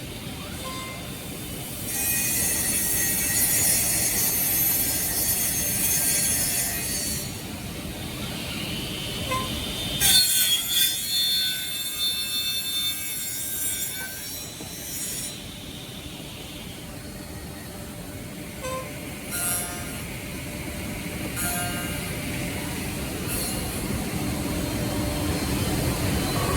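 5-axis CNC woodworking machining center running, its spindle cutting wood with a high-pitched squealing whine over steady machine noise. The whine comes in two long loud spells, the second starting with a few sharp knocks.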